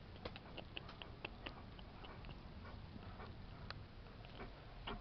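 Faint, irregular clicks and light rustles from a Bernese Mountain Dog shifting about close to the microphone inside a plank-lined doghouse.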